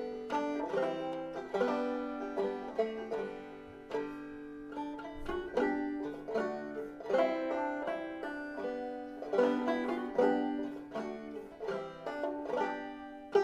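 Walnut-and-ebony banjo with a White Lady tone ring, being picked in a continuous run of quick plucked notes. The instrument is played to demonstrate its tone.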